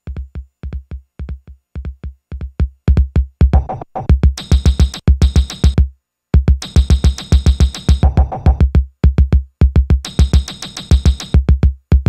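Live electronic techno played on hardware: a fast, driving kick-drum beat. Bright, hissing high layers come in about four seconds in, the music cuts out completely for a moment about six seconds in, then the beat drops back in with the high layers.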